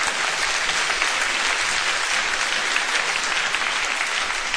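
Large theatre audience applauding, a dense, even clatter of many hands clapping.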